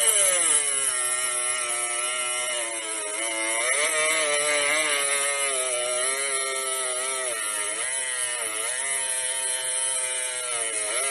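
Cordless angle grinder's motor whining at speed, its pitch sagging and recovering several times as the disc is loaded against the work.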